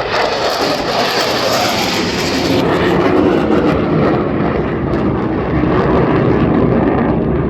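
Loud jet noise from an F-35B Lightning II's single engine in flight, a steady rushing rumble. Its high hiss falls away about two and a half seconds in, leaving a lower rumble.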